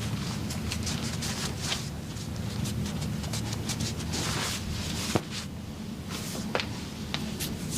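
Handling and rustling noises with scattered sharp clicks, the loudest click about five seconds in, over a steady low hum.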